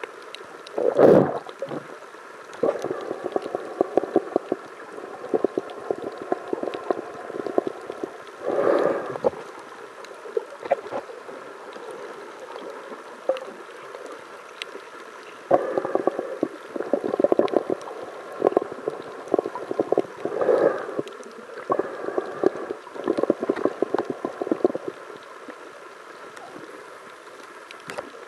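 Muffled underwater sloshing and crackling heard through an underwater camera's housing, swelling into louder gurgling bursts every few seconds, with a faint steady tone underneath.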